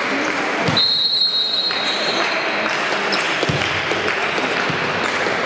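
Volleyball referee's whistle: one steady blast about a second in, lasting about a second, over continuous crowd and hall noise. Later come a few sharp knocks of the ball being struck.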